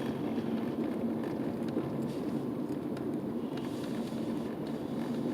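Steady road and engine noise inside a moving car's cabin, an even low rumble.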